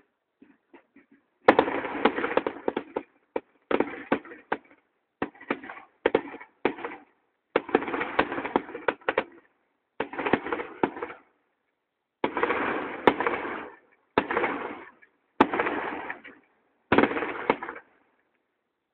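Fireworks crackling in about a dozen separate bursts, each lasting about a second, picked up through a phone's microphone.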